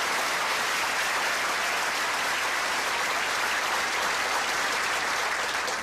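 Audience applauding steadily in a large room.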